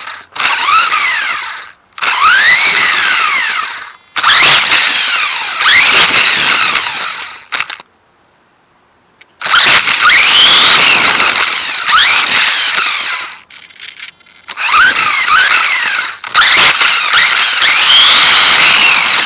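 Electric drive motor and gears of a Dromida DB4.18 RC car whining in repeated bursts of throttle, the pitch rising and falling with each burst over a noisy rush of tyres and drivetrain. It cuts out for about a second and a half a little before the middle, then carries on in more bursts.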